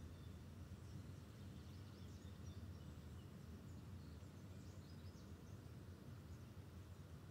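Faint outdoor ambience: a low steady rumble with small birds chirping faintly here and there.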